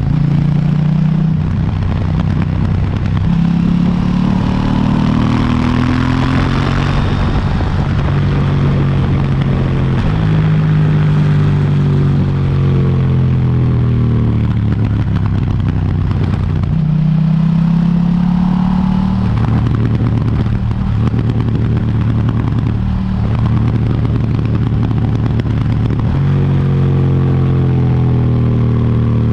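KTM 790 Duke's 799 cc parallel-twin engine through its stock exhaust, under way: it pulls up through the revs several times, with short gaps and drops in pitch as it shifts gear or rolls off the throttle between pulls.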